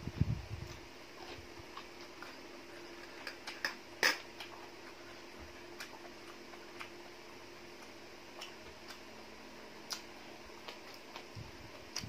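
Close-up chewing of a mouthful of glass noodle seafood salad and crisp fresh vegetables at the start and again near the end, with small clicks of fingers and the plate between. One sharper click about four seconds in is the loudest sound, over a steady faint hum.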